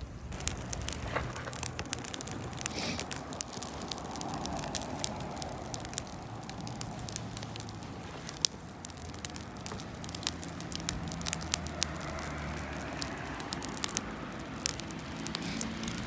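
Wood campfire crackling, with frequent sharp pops and snaps over a steady hiss.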